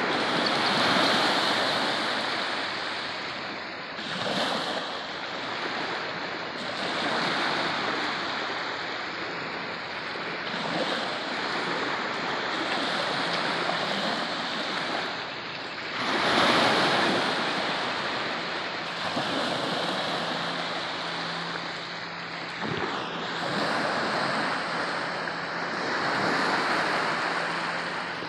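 Small Gulf of Mexico waves breaking and washing up the beach at the water's edge. The surf swells every few seconds and is loudest about halfway through.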